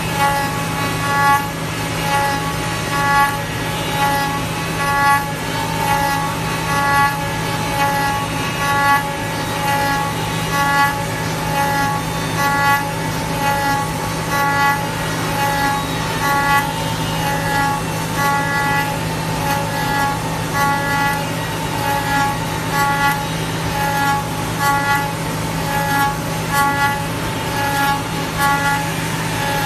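Changfeng CF-MASTERT2-28 5-axis CNC router cutting a wooden workpiece: the spindle's whine swells and fades in a regular rhythm as the bit bites on each pass, about once a second at first and quicker toward the end, over a steady low hum.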